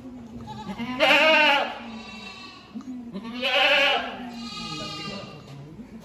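Goats bleating: two loud, quavering bleats, one about a second in and one about three seconds in, with fainter bleats around them.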